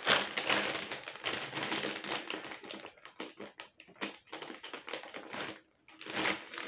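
Plastic crisp packet (a bag of Lay's barbecue crisps) crinkling and crackling as it is handled and turned over, in a dense run of small crackles with short pauses about three and six seconds in.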